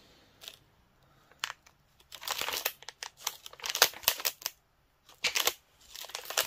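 Plastic crinkling in several short, irregular bursts as the pages of a basketball card album are handled and turned.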